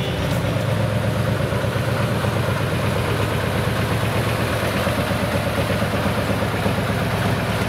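Heavy diesel engine of an Iveco-cabbed pulling truck running steadily at low revs with a fast, even pulse as the truck rolls slowly.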